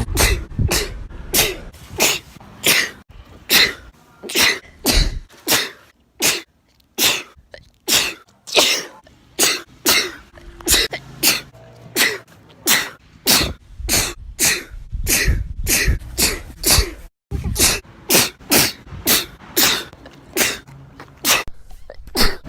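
A rapid string of one person's sneezes, edited back to back at about two a second, each a short sharp burst.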